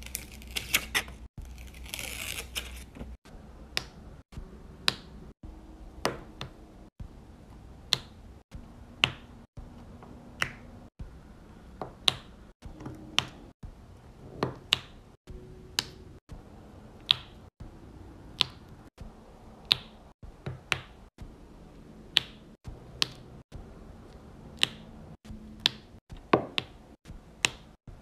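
Diamond painting drill pen pressing square resin drills onto the sticky canvas, a sharp click about once a second as each drill is set down.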